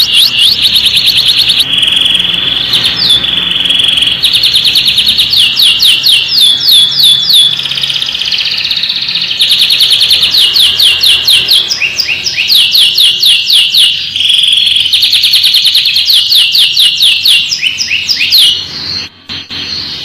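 Domestic canary singing a long, continuous song of fast trills and rolls: quick runs of sweeping notes many times a second, alternating with buzzy held trills. It breaks off briefly about a second before the end.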